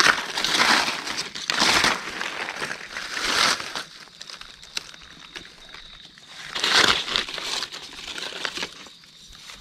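Dry leaf litter crunching and rustling in several separate bursts, the loudest about half a second, a second and a half, three and a half and nearly seven seconds in.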